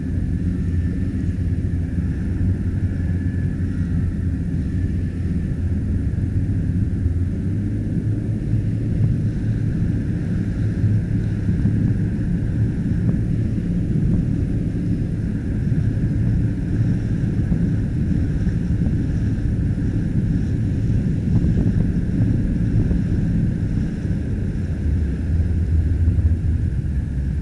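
An inflatable umpire boat's outboard motor running under way: a steady low rumble, a little louder near the end, with wind buffeting the microphone.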